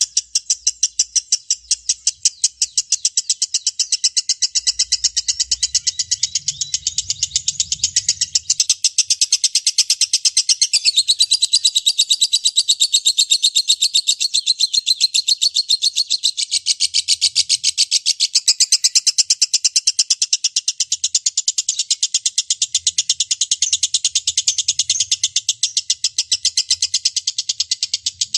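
Lovebird's long 'ngekek' chatter: rapid, evenly spaced shrill chirps, about ten a second, running on without a break.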